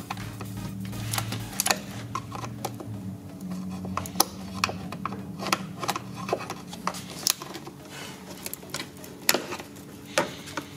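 Irregular clicks and light plastic rattles of wiring-harness connectors and clips being handled and pried with a small flat-blade screwdriver, over a faint low hum.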